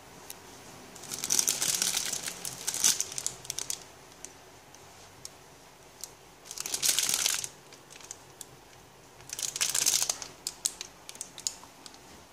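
Clear plastic packaging bags around squishy toys crinkling as they are handled, in three bursts of rustling with small sharp crackles.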